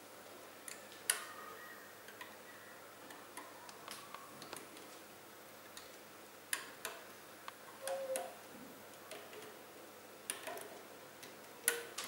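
Plastic hook tool clicking against the plastic pegs of a Rainbow Loom and snapping rubber bands as they are pulled over the pegs: scattered, irregular light clicks.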